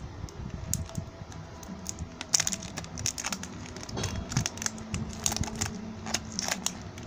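Thin plastic wrap being picked at, crinkled and torn off the cap of a plastic surprise-egg container, making irregular crackles and small clicks.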